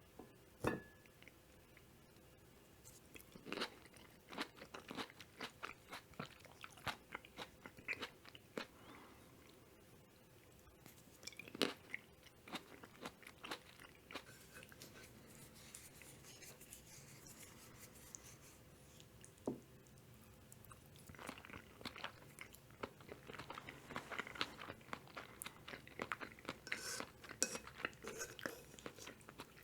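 A person chewing mushroom carbonara close to the microphone: bursts of soft, wet clicks and smacks, with a quieter lull in the middle. A single sharp click near the start is the loudest sound.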